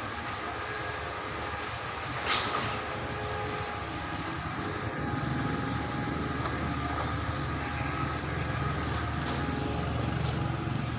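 A motor running steadily with a fixed whine, with one sharp click about two seconds in and a deeper rumble joining from about four seconds in.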